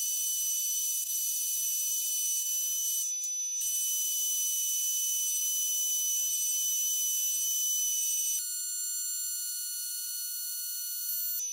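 Metal lathe running while it drills a bore into a bar of grade 5 titanium: a steady high-pitched whine made of several fixed tones over a hiss. It breaks off briefly about three seconds in and shifts to a different set of tones about eight seconds in.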